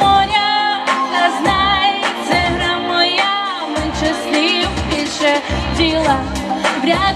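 A woman singing a pop song into a microphone over a backing track, her sustained notes wavering with vibrato, with deep bass hits under the melody.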